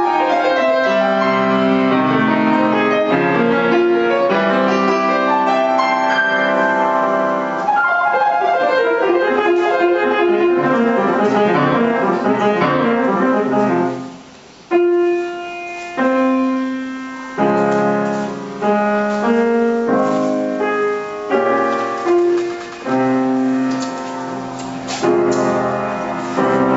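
Solo grand piano playing fast running passages. About halfway through it pauses briefly, then goes on with a slower run of firmly struck chords, each ringing and fading before the next.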